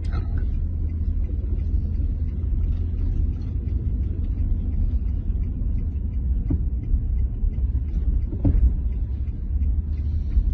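Steady low rumble heard from inside a car moving through a sandstorm, with two faint brief knocks in the second half.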